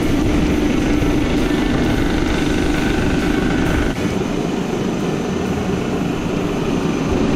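Cylinder head resurfacing machine running steadily as it skims the deck face of a warped cylinder head, with a steady hum under a higher whine that drops out about halfway through.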